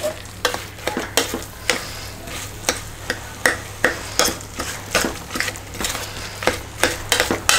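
Steel spoon stirring thick cooked-down tomato masala in an open pressure cooker, knocking and scraping against the metal pot in irregular clinks about two a second, over a low sizzle.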